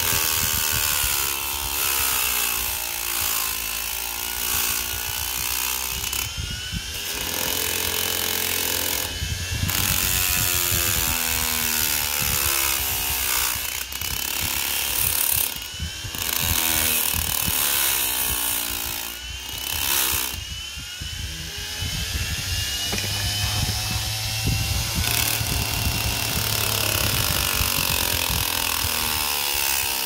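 Washing-machine motor spinning a red abrasive polishing wheel on a drill chuck, with rusty pliers held against the wheel: a rough grinding hiss over the motor's whine, whose pitch sags and rises again. The grinding breaks off briefly several times.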